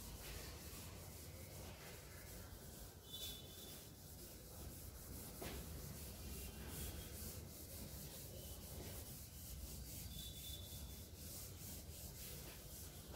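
Chalkboard eraser rubbing across a chalkboard in many quick back-and-forth strokes, wiping off chalk writing; faint.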